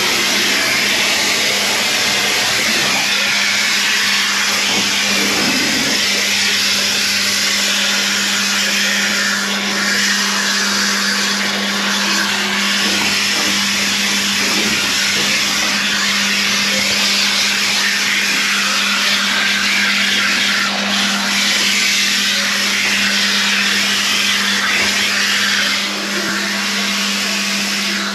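Water spraying from a bathing hose onto a dog in a grooming tub, a steady hiss over a constant machine hum.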